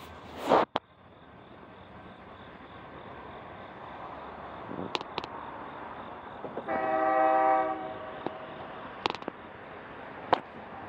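An approaching diesel freight train led by EMD SD60-series locomotives: a steady engine rumble slowly growing louder, with one chord blast of about a second on the locomotive's multi-note air horn near the middle. A short loud noise burst comes about half a second in, and a few sharp clicks come later.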